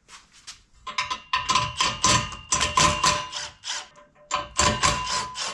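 A ratchet clicking rapidly in spurts as nuts are run off the steel bumper bar's mounting bolts, with a metallic ringing under the clicks.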